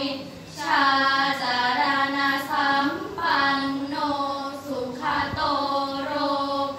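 Five girls chanting together in unison in the Thai sarabhanya melody, a sung Buddhist chant praising the Triple Gem. They hold long pitched notes that move from syllable to syllable, with a brief pause for breath about half a second in.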